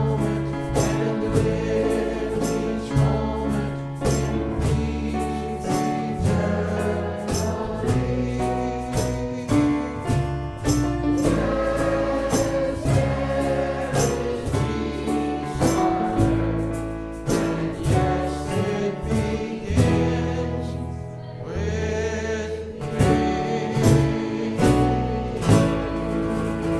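Gospel-style music with a choir singing over a steady beat and bass line.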